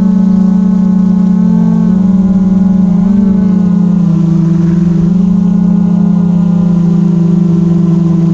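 Quadcopter drone's propellers and motors buzzing loudly and steadily, the pitch shifting slightly up and down a few times as the drone adjusts its flight.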